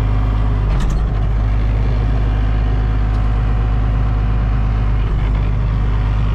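Tractor running with a feed wagon unloading feed down its discharge chute into a wooden bunk, heard from inside the tractor cab: a loud, steady machine drone with a brief clink about a second in.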